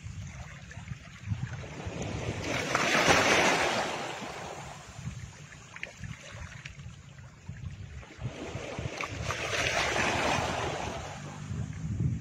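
Ocean surf: waves washing in and drawing back, swelling twice.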